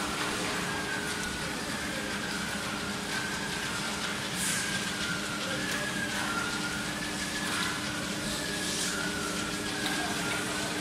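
Steady running noise of a polycarbonate corrugated sheet extrusion line: a constant hum with a higher whine that wavers slightly in pitch. A brief high hiss cuts in twice, about four and nine seconds in.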